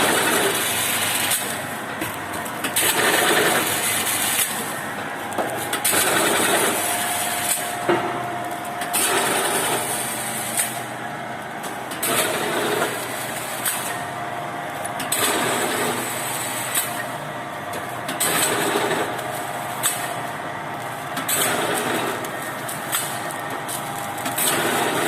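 Automatic flour packing machine running through its cycles, a louder burst of mechanical clatter and hiss about every three seconds over a steady machine hum.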